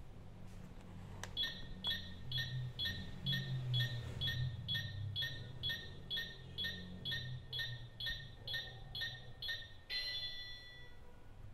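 Battery-powered toy stove's electronic sound effect, started by turning the burner knob: a short tick repeats steadily about twice a second, then a brief ringing tone near the end.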